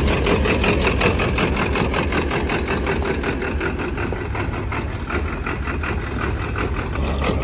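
Turbocharged engine of a custom hot-rod Ford tractor idling as the tractor rolls slowly along, with a steady, even pulse of several beats a second.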